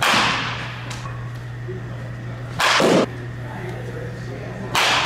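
Baseball bat striking a pitched ball twice, a sharp crack right at the start and another near the end, each ringing out briefly in the cage. Between them comes a short noisy burst of about half a second.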